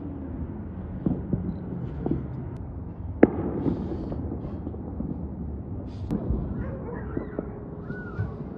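Fireworks going off: a scattered series of pops and bangs, the sharpest about three seconds in, over a steady low rumble.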